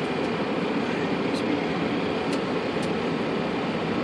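Steady background noise on a Boeing 747-400 flight deck while parked: an even hiss and hum, with a few faint clicks.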